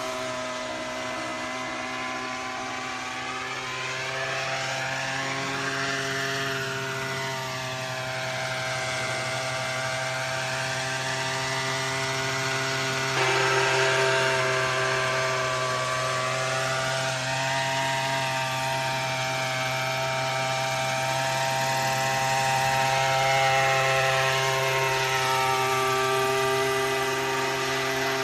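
Gasoline-engined 800-size Century radio-control helicopter in flight, its engine holding a steady pitch. The sound slowly swells and fades as it moves, with a sudden jump in loudness about halfway through.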